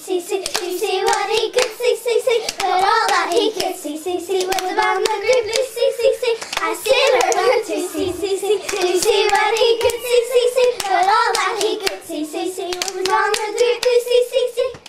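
Children singing a hand-clapping playground rhyme together, with hands clapping along in a steady quick rhythm throughout. The singing and clapping stop abruptly at the end.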